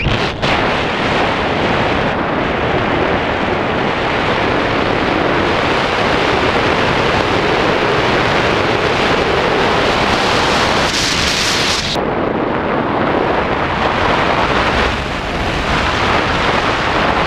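Wind rushing over the action camera's microphone during a tandem parachute descent under canopy: a loud, steady roar of wind noise, with a brighter hiss that cuts off sharply about twelve seconds in.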